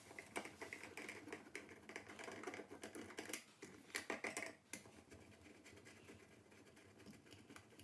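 Faint, irregular clicking and scraping of a screwdriver working the mounting screws of an old wall light switch, with a few louder bursts of scraping about three and four seconds in.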